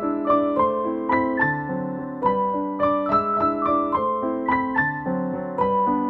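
Background music played on a piano-like keyboard: a gentle melody over chords, several notes a second.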